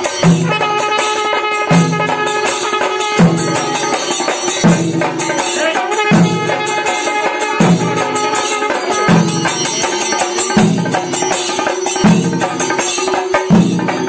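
Kerala chenda melam: chenda drums beaten with sticks amid a dense jingle of hand cymbals, over a deep beat that comes about every second and a half. A held high note sounds over it for the first few seconds.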